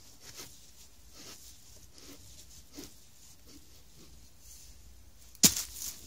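Soft footsteps rustling through dry forest litter, then a sudden loud sharp knock about five and a half seconds in, followed by a short rustle.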